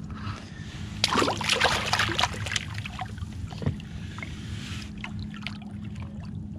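Water splashing and sloshing around a fishing kayak in a dense run of small splashes and drips from about a second in until about five seconds, over a low steady hum.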